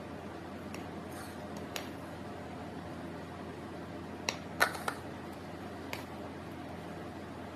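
Thick batter being scraped with a silicone spatula from a stainless steel bowl into a metal kouglof tin, over a steady low room hum. A few faint clicks, then a quick cluster of sharper knocks a little past halfway as the spatula and tilted bowl strike metal.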